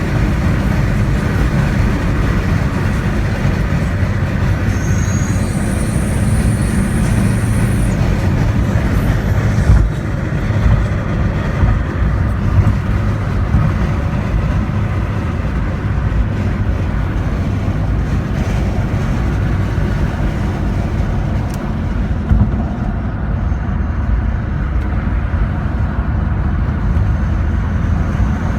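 Porsche 944 Turbo's turbocharged four-cylinder engine running steadily. A thin, high turbo whistle is heard from about four and a half to eight seconds in.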